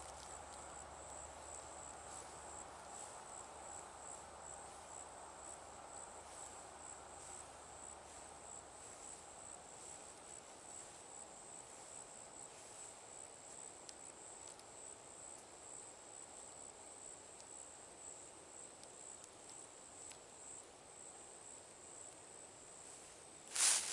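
Night chorus of crickets: a faint, steady high-pitched trill with a slow regular pulse, over a softer lower hum of more distant insects. Just before the end a sudden loud rustle cuts in.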